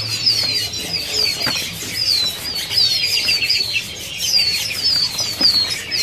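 Many caged songbirds chirping together: a dense run of short, high, down-slurred chirps repeating over and over, with a bird fluttering its wings in a cage and a few light knocks.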